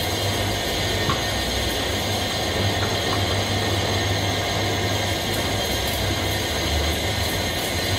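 Steady running noise of workshop machinery with a low electric-motor hum, with a few faint small clicks of the angle grinder being handled as its disc is fitted.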